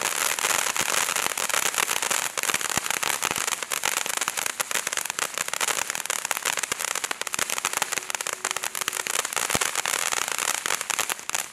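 Standard Fireworks 'House Party' fountain firework burning: a steady hiss of spraying sparks laced with dense, rapid crackling, tailing off at the very end.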